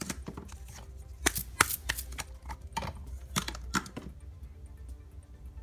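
Sharp clicks and taps of a plastic Play-Doh can being handled as purple dough is worked out of it, over faint background music. The handling stops about four seconds in.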